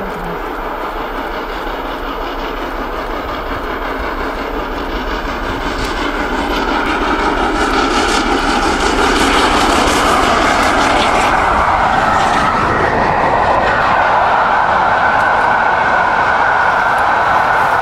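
Peppercorn A1 4-6-2 steam locomotive Tornado approaching and passing at speed with its train. A rushing noise grows louder over the first half, then the coaches roll by in a steady loud roar.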